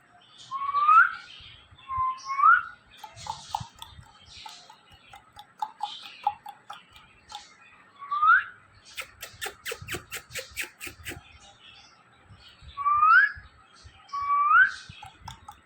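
Pet parrot whistling: five short whistles, each rising in pitch, with soft chatter and clicks between them. A little past the middle comes a quick, even run of about ten clicks.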